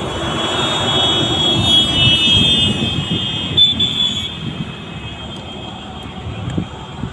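Highway traffic: a loaded truck overtakes close by. Its engine and tyre noise swells over the first few seconds and then fades, with a high whine that stops about four seconds in.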